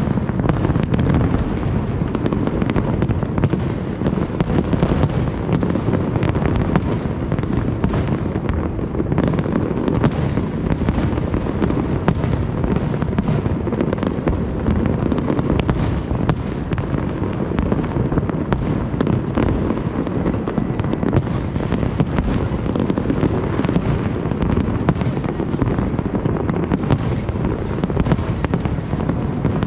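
A large fireworks display with many shells bursting at once: a dense, unbroken run of overlapping low booms, with sharp cracks throughout.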